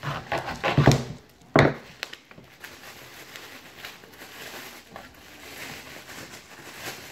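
Bubble wrap crinkling and rustling as it is handled and pulled open, with a sharp crackle about one and a half seconds in.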